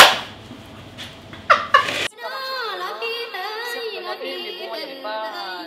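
Loud bursts of voices laughing and exclaiming, then about two seconds in the sound cuts abruptly to music with a singing voice.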